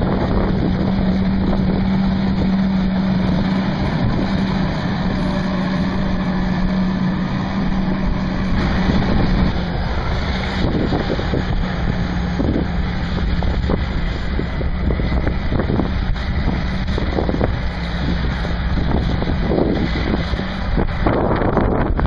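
Caterpillar bulldozer's diesel engine running steadily as it pushes dirt along a trench, with wind rumbling on the microphone. A few short knocks come through in the second half.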